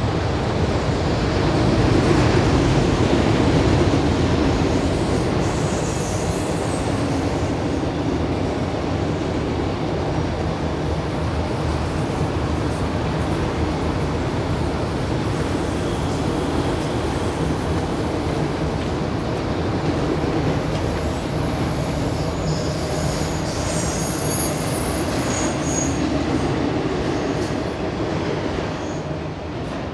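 Freight cars of a long Union Pacific manifest train rolling past at speed: a steady rumble and rattle of steel wheels on rail, with thin high wheel squeals in the second half.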